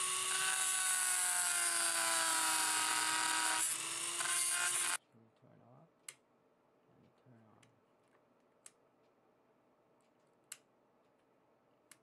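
Handheld rotary tool with a cutoff disc running at high speed and cutting into the spotlight's plastic housing: a steady high whine that wavers slightly in pitch over a loud hiss, cutting off suddenly about five seconds in. After that, near quiet with a few faint clicks.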